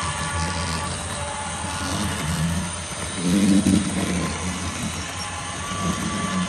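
Model train running on a layout: a steady low hum with faint steady whine tones. About halfway through comes a louder, uneven low rumble lasting roughly half a second.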